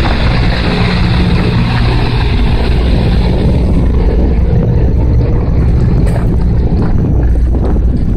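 John Deere tractor engine running steadily as it tows a camper trailer away, a low even drone.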